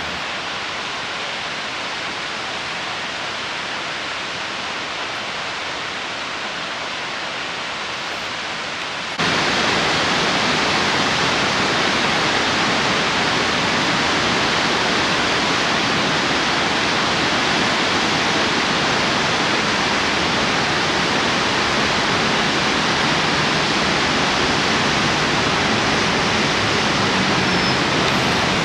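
Steady rushing noise that jumps abruptly louder about nine seconds in and then holds level: the rush of a mountain creek cascading over rocks.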